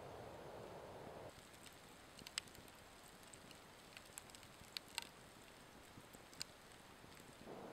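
Campfire of burning logs crackling: a scattering of sharp pops and snaps, about seven over several seconds, the loudest about two and a half seconds in and about five seconds in. A soft steady hiss stops about a second in.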